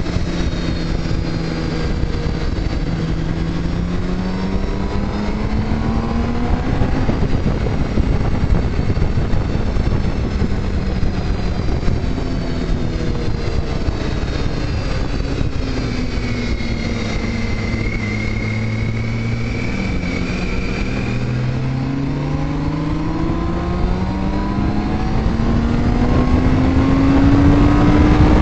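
Motorcycle engine under way, its pitch climbing under throttle, dropping at shifts and climbing again, strongest near the end, over a steady rush of wind noise.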